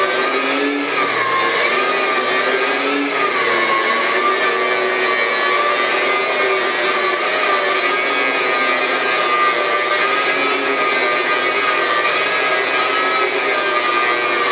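Host Liberator dry carpet-cleaning machine running, its brushes working Host sponge compound into the carpet. A steady motor whine that wavers slightly in pitch.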